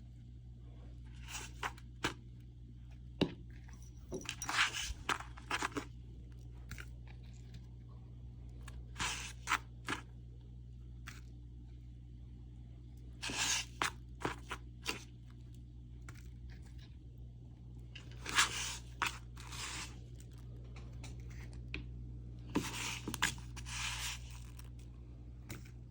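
Hand work on food in a kitchen: short bursts of scraping, crunching and tearing every few seconds over a steady low hum.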